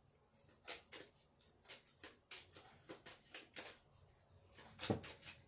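A deck of playing cards being handled and shuffled by hand: a faint run of irregular crisp flicks and clicks, the loudest about five seconds in.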